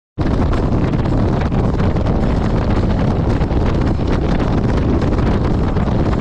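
Wind buffeting the microphone: a steady, loud rumbling rush with no pitch to it, strongest in the low end.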